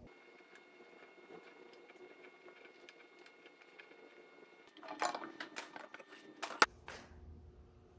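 Faint ticks and scratches of a pencil marking a dovetail board, then, about five seconds in, a flurry of clicks and knocks from wooden boards being handled, the sharpest knock near the end.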